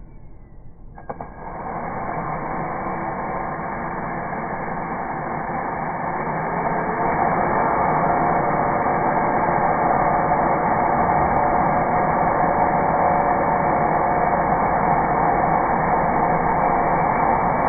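Makita cordless drill motor running continuously while drilling into a thin plywood strip. It starts abruptly about a second in, grows louder over the next several seconds, then holds a steady hum.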